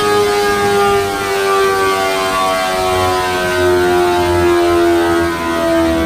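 Kawasaki H2's supercharged inline-four on a dyno with its revs falling slowly and smoothly, a single steady engine note gliding down in pitch. Flames and sparks shoot from the exhaust as the engine winds down.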